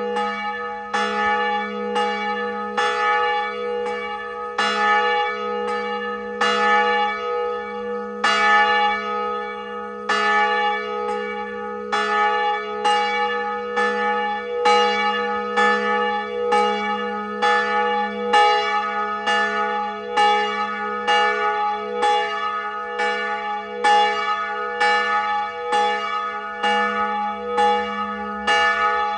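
Church bell tolling steadily, struck roughly once a second, each stroke's hum ringing on under the next.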